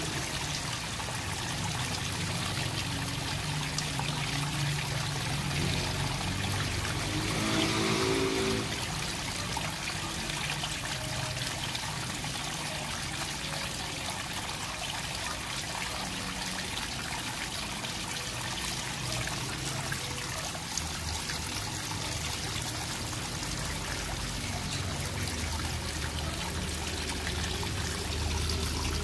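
Water draining out of a water tank, running steadily from the drain pipe and splashing onto a wet concrete floor. A brief pitched sound is heard over it about eight seconds in.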